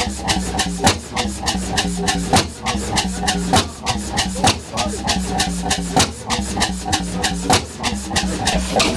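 1910 Cooper Bessemer single-cylinder two-stroke 35 hp stationary engine running, a fast, even clatter of mechanical clicks and knocks over a steady low hum.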